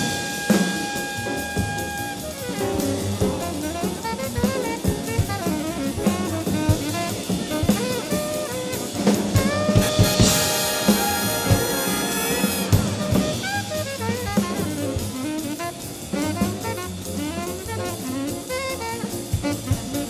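Big-band jazz with saxophones and brass, a drum kit played along with it. Held horn notes open, busy ensemble lines follow, and a loud full-band hit with a cymbal crash comes about halfway.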